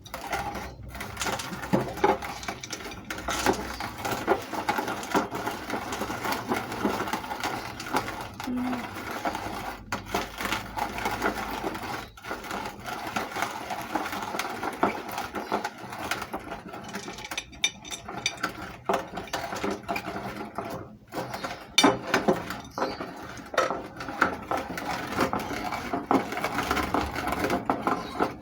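Meat grinder running and crushing colourful hard candy: a continuous dense crackling and crunching with many small sharp ticks and a few louder cracks.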